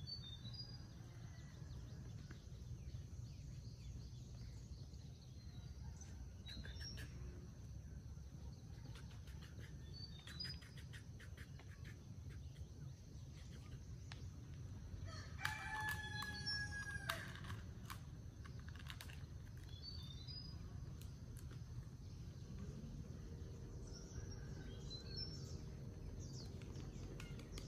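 A rooster crowing once, about halfway through, a single long call of about two seconds. Short high chirps of small birds come and go around it.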